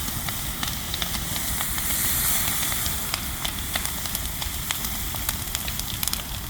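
Big bonfire crackling with a steady hiss that swells about two seconds in, as water from a garden hose is sprayed onto the burning pile.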